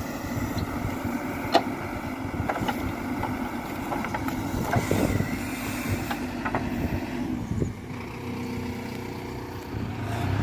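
Diesel engine of heavy machinery running, with scattered sharp knocks and clanks. About eight seconds in, the sound settles into a steadier, lower engine note.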